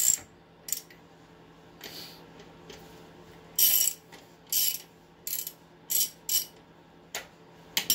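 Hand ratchet clicking on a car wheel's lug nuts as they are run down snug, in about eight short bursts of rapid ratcheting with brief pauses between.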